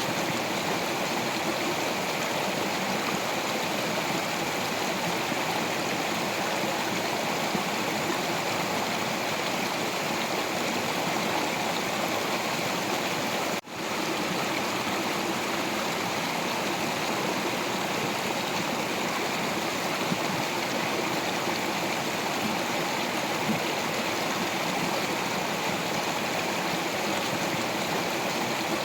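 Water stream flowing over rocks, a steady rush with some gurgling. The sound briefly drops out for a moment about halfway through.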